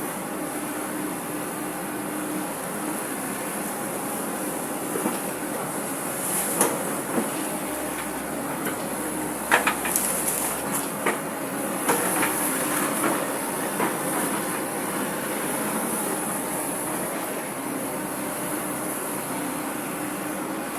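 Hydraulic excavator running steadily while digging, with a handful of sharp metallic clanks from the bucket and arm around the middle.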